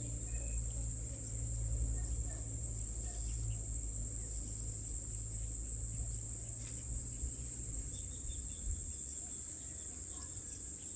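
Steady high-pitched trilling of insects in the fields, running unbroken, over a low rumble.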